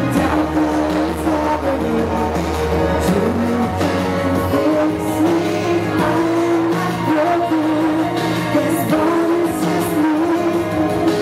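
Live pop-rock band playing a song at concert volume, with long held notes over a steady accompaniment.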